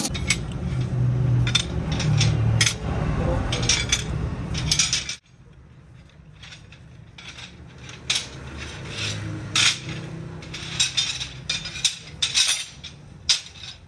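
Flat steel strips, blanks for cultivator blades, clinking and clattering against one another as they are handled and stacked by hand. A low hum underneath cuts off suddenly about five seconds in, and the clinks go on more quietly.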